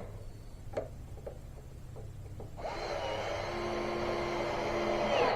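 A few light knocks, then a cordless drill runs for about three seconds, driving a deck screw, growing louder until it stops suddenly.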